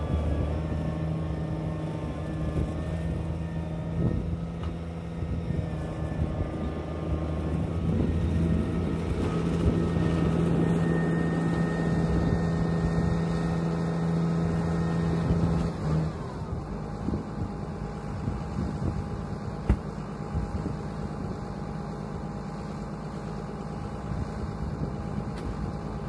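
Farm tractor's diesel engine running as its front-end loader pushes through drifted snow. About two-thirds of the way through, the engine note drops and eases off, then runs on more steadily.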